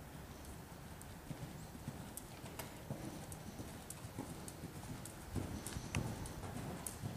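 Hooves of a five-year-old Thoroughbred cantering on sand arena footing: a run of soft, dull thuds that grow louder about five seconds in as the horse comes nearer.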